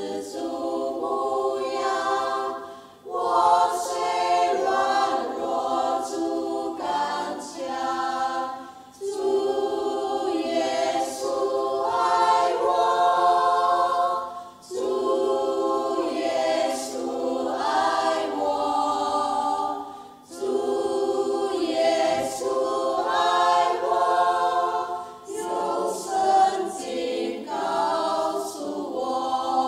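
Women's choir singing a hymn a cappella, in phrases of about five seconds with brief breaks for breath between them.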